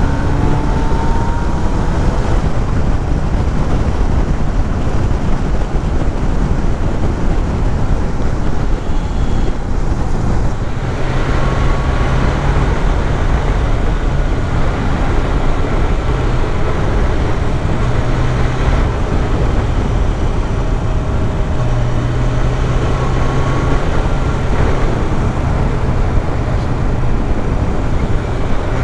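Motorcycle engine running while riding along, under loud rushing wind noise on the bike-mounted microphone. The engine pitch rises several times as the bike accelerates.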